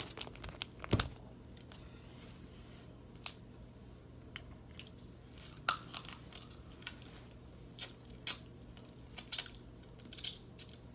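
Close-up eating sounds of a seafood boil: crab and shrimp shells cracking and wet mouth clicks while chewing, heard as scattered sharp clicks and cracks with quiet between, the strongest ones in the first second.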